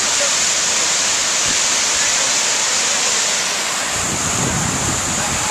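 Waterfall cascading over rock terraces: a loud, steady rush of water. About four seconds in, a low rumble of wind on the microphone joins in briefly.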